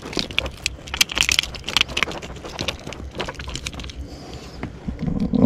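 Irregular clicking and rattling of fishing tackle being handled, a jig and its hooks and fittings knocking together, dense for the first three seconds and sparser after, with a louder knock at the very end.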